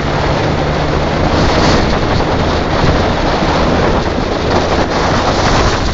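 Wind rushing over the microphone of a moving Yamaha XJ750 motorcycle, loud and steady, with the bike's air-cooled inline-four engine running steadily underneath at road speed.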